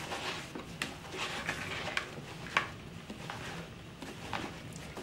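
Hands kneading yeast dough in a plastic bowl: soft, irregular squishes and slaps, with a sharper knock about two and a half seconds in.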